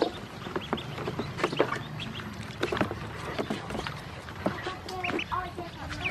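Ducklings dabbling at a plastic water and feed dish: a quick irregular run of bill taps and clicks on the plastic with small water splashes, and a few short high peeps near the end.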